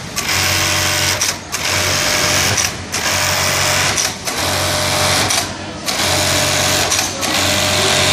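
Juki industrial bartacking machine stitching in short runs of about a second each, with brief pauses between them, one tack cycle after another.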